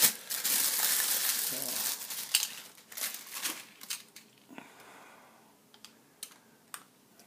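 Clear plastic bag crinkling as a camera lens is pulled out of it, dense for the first two seconds or so, then thinning to scattered rustles and a few small clicks, quieter toward the end.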